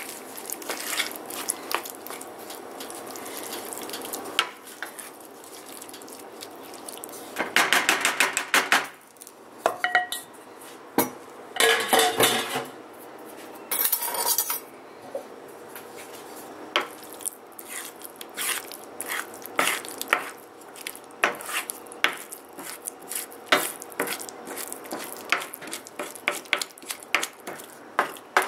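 Wooden spoon scraping and knocking against a stainless steel skillet while stirring a thick grated-cassava dough cooking over low heat, the dough starting to stick to the pan. Frequent clicks, with denser bursts of scraping about eight, twelve and fourteen seconds in.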